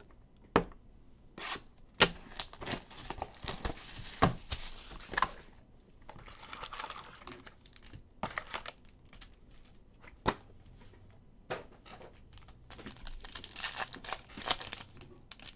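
Foil trading-card packs crinkling and being torn open by hand from a cardboard card box, with irregular sharp taps and clicks of handling; the tearing and crinkling is densest a couple of seconds in and again near the end.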